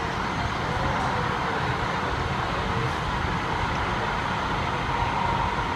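Interior running noise of a TriMet MAX light-rail car under way: a steady rumble and rush of wheels on rail, with a faint steady whine.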